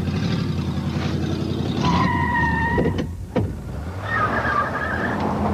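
An old convertible's engine running as the car drives away, with a short high squeal about two seconds in and a wavering squeal near the end.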